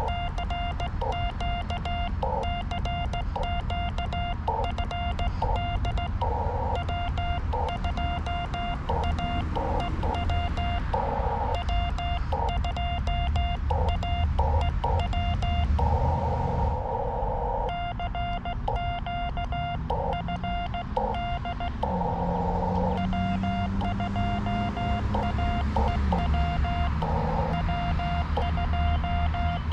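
Morse code sidetone from an FX-4C SDR transceiver, a single pitch keyed on and off by hand in dots and dashes as it calls CQ, first on a straight key and then on iambic paddles. Between calls it briefly gives way to hiss of band noise from the receiver's narrow CW filter.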